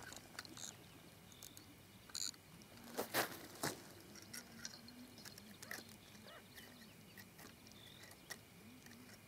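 Mostly quiet, with a few short knocks and crunches from a spinning rod and reel being handled and set down on the shore ice; the loudest pair of knocks comes about three seconds in.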